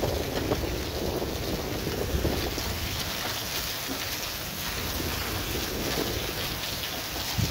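Rain mixed with hail falling steadily, with wind buffeting the microphone.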